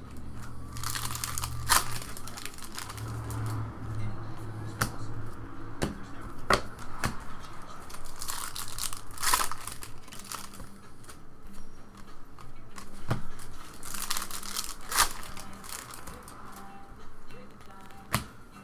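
Trading card pack wrappers crinkling and tearing open, with irregular rustling and sharp clicks as the cards are handled.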